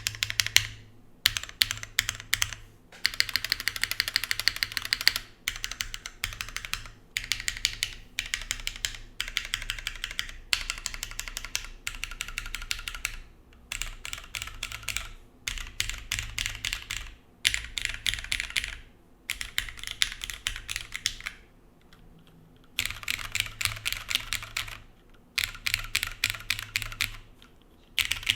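Typing on a TGR Jane ME mechanical keyboard with lubed, filmed Cherry MX Black linear switches in an o-ring-mounted aluminium plate with GMK keycaps: quick runs of keystrokes broken by short pauses.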